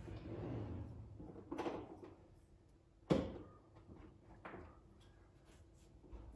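A few knocks and bumps of household things being handled, the sharpest and loudest about three seconds in, with a softer one before it and another after.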